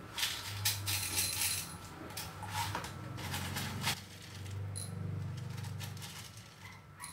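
Light metallic clinking and rattling, in several quick clusters during the first four seconds, over a low steady hum.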